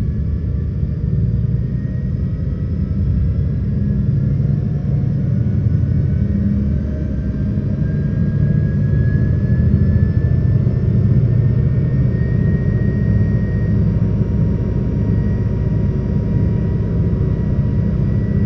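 Jet aircraft engine sound effect: a steady low rumble with a faint whine that slowly rises in pitch.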